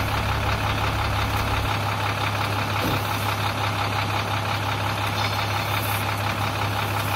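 Sinotruk HOWO 371 hp truck's diesel engine idling steadily with a constant low hum.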